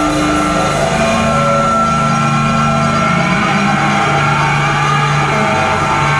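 Dense, loud drone of noisy experimental electronic music, with held tones that change pitch every second or two over a thick rumbling bed.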